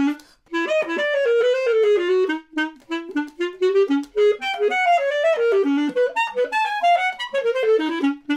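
Basset horn playing a solo melody in quick, short notes, breaking off briefly just after the start.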